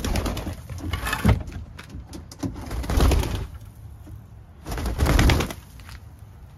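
Backyard hens making low clucking calls, with three loud rustling, bumping bursts as a wooden coop door is opened.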